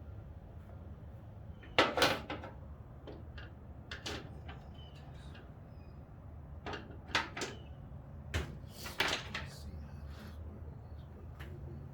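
Snap-on seat trim pieces being pried loose: a scattered series of sharp clicks and knocks, loudest twice about two seconds in, with another cluster about seven to nine seconds in.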